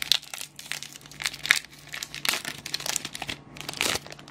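Foil wrapper of a Pokémon booster pack being handled and opened, a dense run of irregular crinkling crackles.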